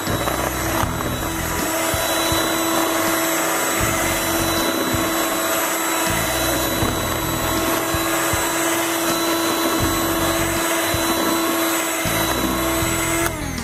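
Electric hand mixer running steadily with a constant motor whine, its beaters whisking eggs and sugar. Near the end it is switched off and the whine slides down in pitch as the motor winds down.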